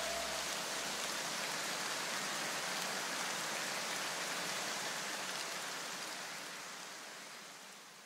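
The tail of an electronic dance track: a steady hiss-like noise wash left over after the last notes, with a low bass rumble dying away in the first second. The hiss fades out to silence near the end.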